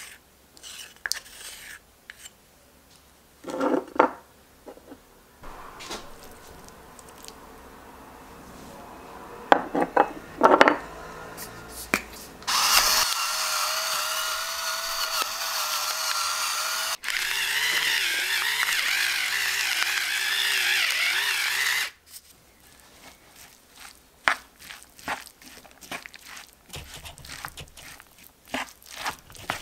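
An electric salt and pepper mill runs over the salad in two runs of about four and five seconds, each starting and stopping sharply. Near the end a wooden spoon clicks and scrapes as the chickpea salad is stirred in a wooden bowl.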